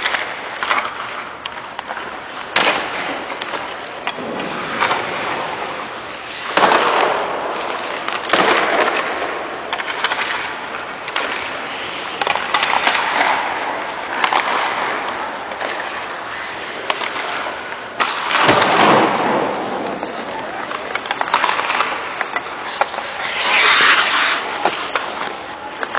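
Hockey skate blades carving and scraping on rink ice, with several louder swishing scrapes as the skater turns and stops, the loudest near the end as he skates right past. Scattered sharp clacks of the stick striking the puck.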